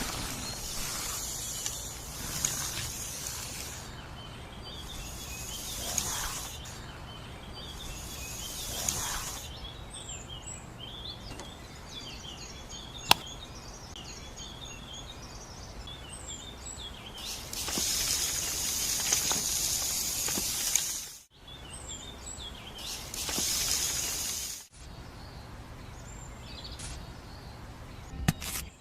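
Outdoor ambience with small birds chirping and several bursts of hiss, plus a single sharp click partway through.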